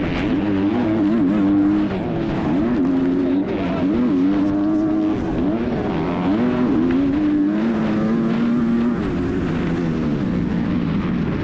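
Onboard sound of a 250cc four-stroke motocross bike racing: the engine revs rise and fall again and again as the rider opens the throttle, shifts and backs off through the ruts.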